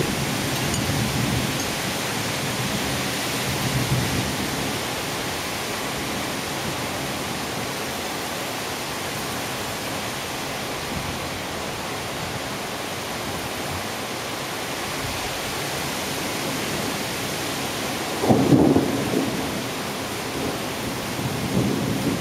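Heavy rain pouring steadily in a thunderstorm, with rumbles of thunder. The loudest rumble comes about eighteen seconds in, with smaller ones near the start and just before the end.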